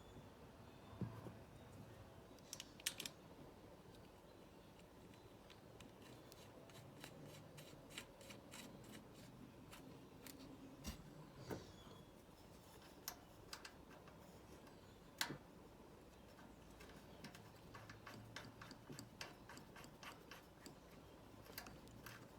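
Near silence with scattered faint clicks and taps, a few of them louder, with no steady machine sound.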